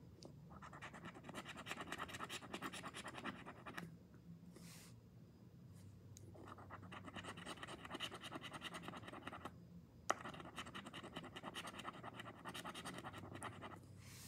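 The latex coating of a scratch-off lottery ticket being scratched away in rapid back-and-forth strokes, in three spells of about three seconds each, with a single sharp tap about ten seconds in.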